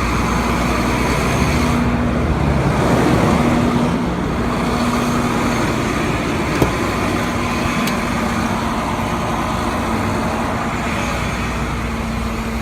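Rollback tow truck's engine running steadily, with a humming tone that comes and goes and a single sharp click about six and a half seconds in.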